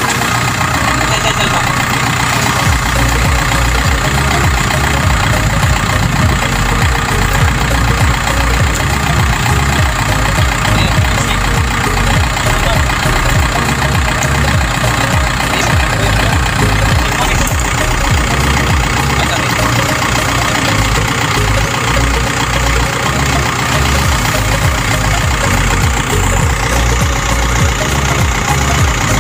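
Tractor engine running steadily at idle.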